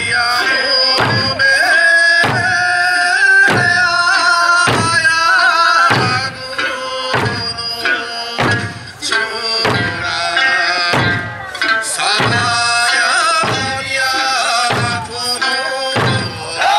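Eisa drumming: large ōdaiko barrel drums and hand drums struck together in a slow, even beat, about one stroke every second, over a pitched Okinawan folk-song accompaniment.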